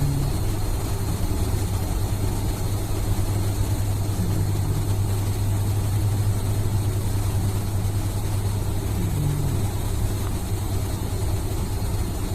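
Snoring: a steady low drone with a short falling snore sound recurring about every four to five seconds, three times here.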